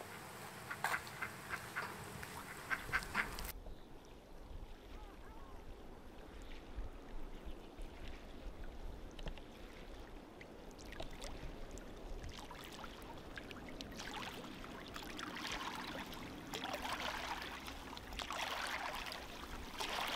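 A mallard hen gives a run of short clicks and soft calls for the first few seconds. The sound then changes abruptly to faint, steady outdoor ambience, with soft swells of noise toward the end.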